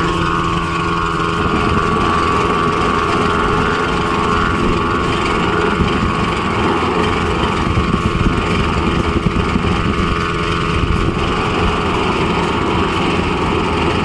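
Steady, engine-like mechanical running noise with a rumble and a few constant tones, heard while the gap between the two rail ends is preheated for thermit welding.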